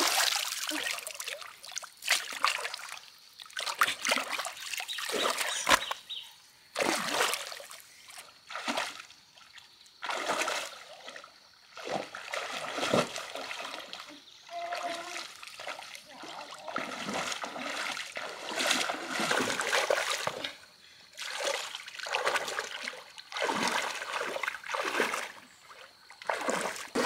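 Muddy water splashing and sloshing, in repeated surges about every second or two, as a person wades through a shallow drained pond and grabs at fish by hand.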